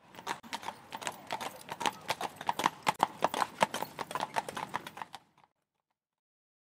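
Horse hoofbeats, a quick run of clip-clops that grows louder and then fades away about five seconds in.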